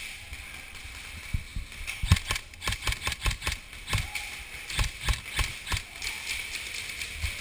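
A run of irregular thumps and clicks, thickest between about two and six seconds in, over a steady hiss.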